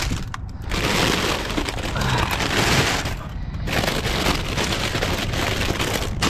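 Plastic chip bags crinkling and rustling as they are grabbed by the handful and dropped, with two short pauses, one about half a second in and one around three and a half seconds in.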